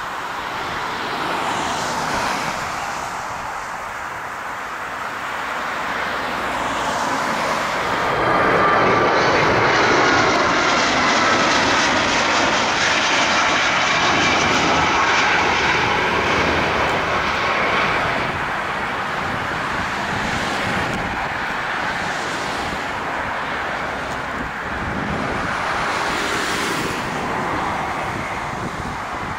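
Four rear-mounted Soloviev D-30KU turbofan engines of an Ilyushin Il-62MGr on landing approach: a jet rumble with a whine over it. It grows louder as the airliner passes, is loudest about a third to halfway through, then fades.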